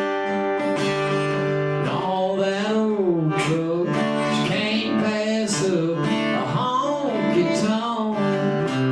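Live acoustic country music led by an acoustic guitar, with a melody line that bends and slides in pitch over a sustained bass.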